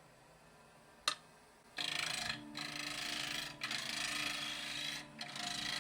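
Turning tool cutting a spinning wooden bowl blank on a wood lathe: a loud hissing scrape in several passes with short breaks between them, over a low steady hum. A sharp click about a second in, before the cutting starts.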